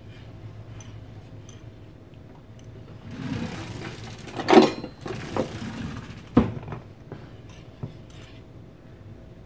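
Wire whisk stirring warm milk in a saucepan, its wires ticking and scraping against the pan, busier midway with a couple of louder knocks.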